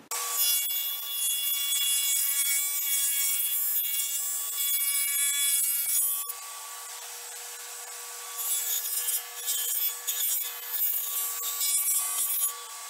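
Table saw running with a steady blade whine while it cuts a half-inch rabbet along the back edge of plywood panels. The cutting noise eases about six seconds in, comes back unevenly about two seconds later as the panel is fed on, and drops off near the end.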